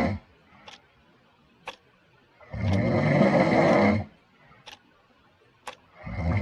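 Loud snoring, one long snore every three seconds or so, each about a second and a half long, with a clock ticking about once a second in the pauses between snores.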